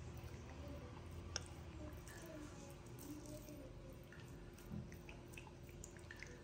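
Faint wet squishing of fingers rubbing thick masala paste into a scored whole pomfret, with a single small tick about a second and a half in.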